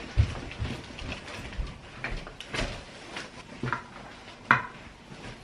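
Scattered knocks, clicks and light clatters of household objects being handled and set down. The two loudest knocks come just after the start and about four and a half seconds in.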